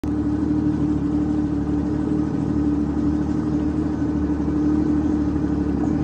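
Yamaha WaveRunner personal watercraft engine running steadily, an even drone that holds one pitch throughout.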